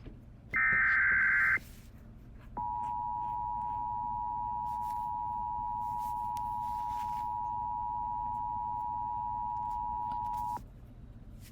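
Emergency Alert System broadcast signalling: one short burst of digital header data, then a steady single-pitch alert tone held for about eight seconds before cutting off. It marks the start of a new emergency alert, here a tornado warning.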